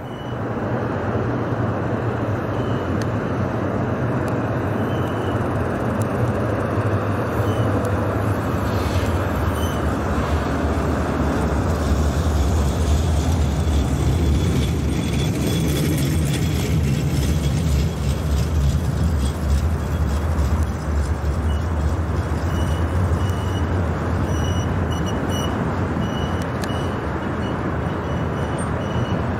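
71-623.02 (KTM-23) low-floor tram running past on its rails: a steady low rumble of wheels and running gear, with faint short high whining tones coming and going.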